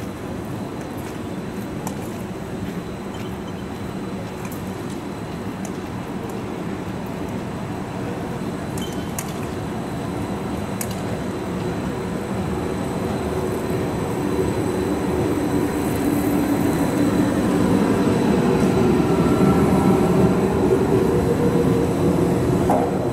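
Bombardier SN 2001 low-floor tram approaching and passing close by: a steadily rising hum of motors and steel wheels on the rails, with a whining tone as it draws level, loudest near the end.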